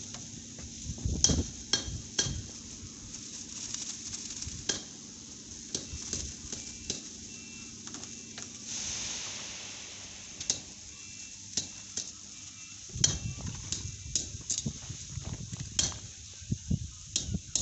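Construction work: irregular sharp clicks and knocks, like tools and stones striking metal, with a short hiss about nine seconds in and a stretch of low rumbling and scraping near the end.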